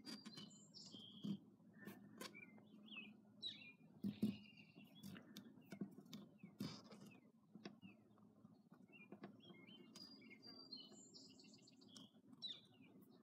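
Faint bird chirps and tweets, many short high calls scattered throughout, over a low steady hum, with occasional soft clicks.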